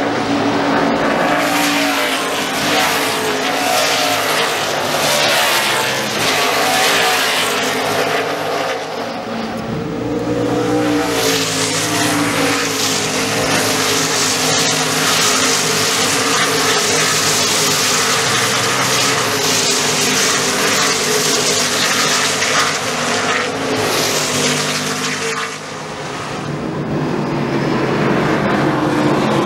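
Loud V8 engine exhaust, running hard at high revs with its pitch shifting up and down several times. The sound dips briefly about ten seconds in and again a few seconds before the end.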